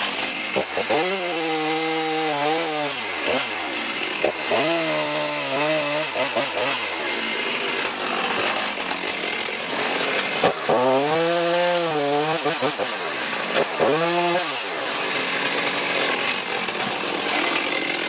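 Handheld two-stroke chainsaw trimming protruding wood off the side of a log. The engine runs at high revs throughout, its pitch rising and falling four times as the chain goes in and out of the wood.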